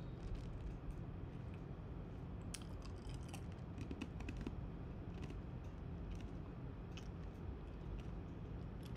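Scattered light clicks and taps, like typing on a computer keyboard, some bunched together about three seconds in, over a steady faint hum.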